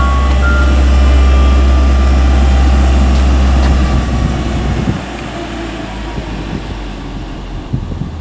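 A heavy engine running steadily with a deep low hum and a faint whine. About five seconds in it drops away to a quieter rumble, with a few light knocks.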